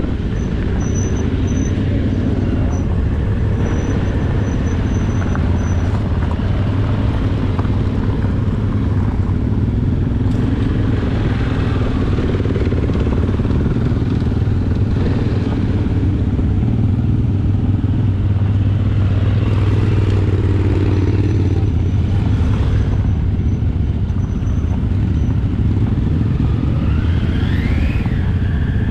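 Suzuki V-Strom 650 XT's 645 cc V-twin engine running steadily at low road speed, heard from on the bike, with other motorcycles close by.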